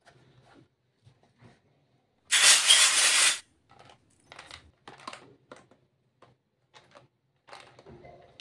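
Small plastic toy kitchen pieces being handled and set down: scattered light plastic clicks and taps, with one loud burst of hiss-like noise about a second long a little over two seconds in.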